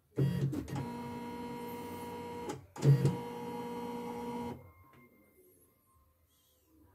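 CNY E960 computerised embroidery machine running in two spells, a steady motor whine broken by a short pause about two and a half seconds in, then stopping about four and a half seconds in. The machine has just been repaired after jamming.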